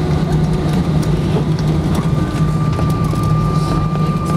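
Jet airliner cabin noise while taxiing: a steady low engine hum with a thin, steady high whine that grows stronger about two seconds in.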